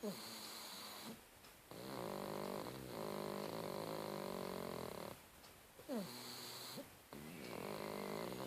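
A sleeping pug snoring: long snores of about three seconds with many stacked tones, each breath opening with a short squeak that falls in pitch.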